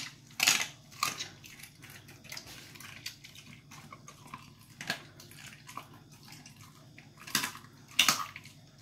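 German Shepherd puppy crunching a raw chicken wing, the bone cracking in irregular sharp crunches between its teeth.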